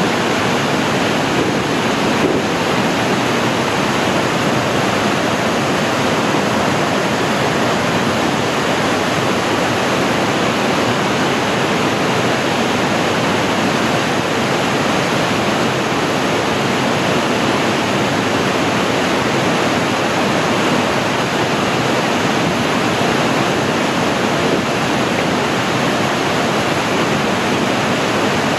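Floodwater rushing through a grade 4 whitewater rapid on a river in very high water: a loud, steady roar of churning water.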